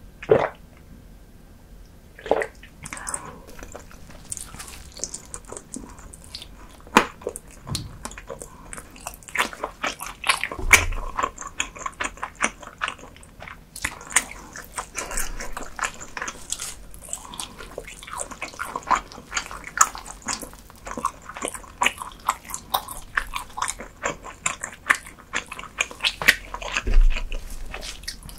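Close-miked eating sounds: chewing, with a dense, irregular run of quick mouth clicks and lip smacks. Two low thuds stand out, one about eleven seconds in and one near the end.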